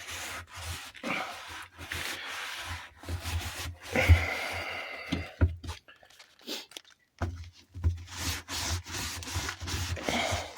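A washing machine's rubber door seal being scrubbed by hand in irregular rubbing strokes, with a short pause about six seconds in.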